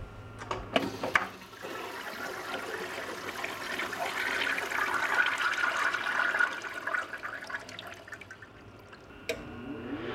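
Water rushing and draining: a few clicks at the start, then a gushing hiss that swells to its loudest around four to six seconds in and dies away, with a sharp click near the end.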